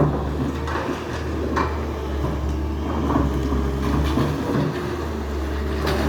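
Heavy demolition machinery running with a steady low engine hum, with a sharp knock at the start and a few scattered knocks and clatters of debris.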